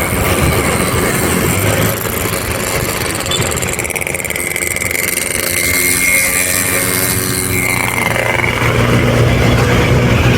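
Motor vehicle engine running at speed, with road and wind noise, on a chase after an ambulance. The engine gets a little louder in the last few seconds.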